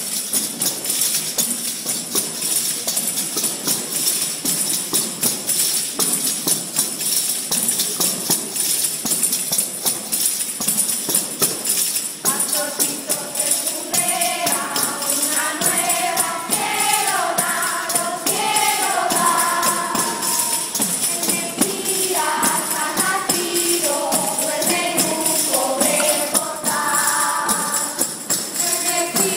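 Panderetas, Cantabrian frame drums with metal jingles, played in a steady, fast rhythm. About twelve seconds in, a group of girls' and women's voices joins in singing over the drums.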